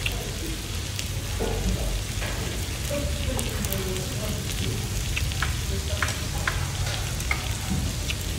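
Meat sizzling on a tabletop samgyupsal grill pan, a steady frying hiss with scattered light clicks.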